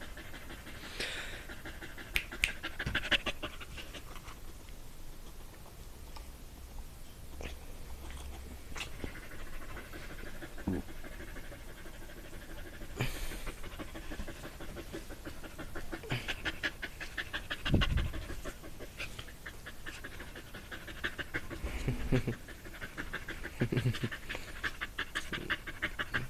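Dog panting fast and hard in a rapid, even rhythm of chuffs like a steam train, with a few dull thumps along the way.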